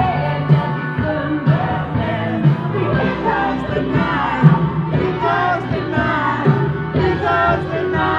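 Rock song with a steady beat and a sung melody.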